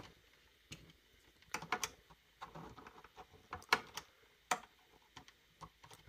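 Irregular light clicks and knocks from a Hermes 3000 typewriter carriage being wiggled by hand to seat it snugly on its anchor bracket.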